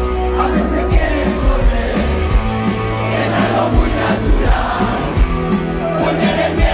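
Rock band playing live through a concert PA, with held bass notes and regular drum hits, heard from amid the crowd, which sings along.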